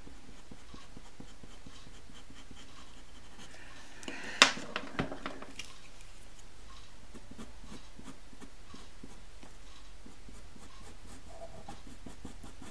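Pastel pencil scratching lightly on textured pastel paper in short strokes. About four seconds in comes one sharp knock followed by a few lighter clicks, as one pastel pencil is put down and another picked up.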